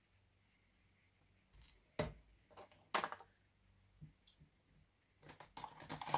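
Two sharp clicks about a second apart, then lighter taps and a quick cluster of clicks near the end: makeup containers and brushes being picked up and set down.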